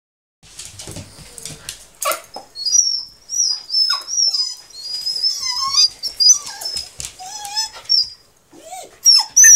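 Small dog whining in high-pitched, wavering whimpers that rise and fall, with a louder sharp cry near the end; it is eager to go out for a walk.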